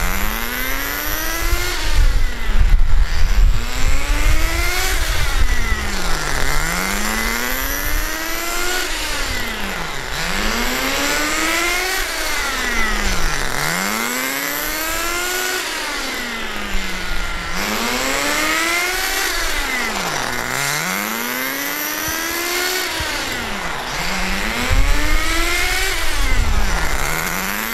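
Vertex .18 nitro engine of a 1/10 scale RC truck, running rich through its break-in, revved up and down to about half throttle while the truck drives figure-of-eight circles. The engine note rises and falls about every two seconds.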